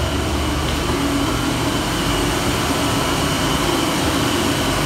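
Ship's centralised air-conditioning plant running: a steady, loud machinery drone from the compressor and its motor, with a low hum and a thin high whine over it.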